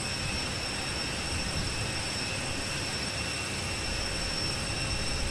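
Turbine of a parked jet aircraft running on the apron: a steady high whine over an even rushing noise.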